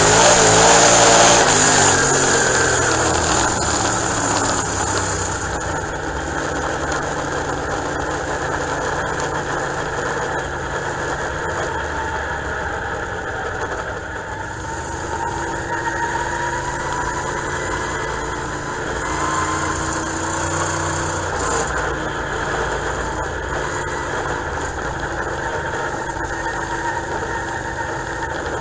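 A dirt-track race car's engine heard from inside the cockpit, revving hard for the first couple of seconds, then running lower and steadier with small rises and falls in pitch.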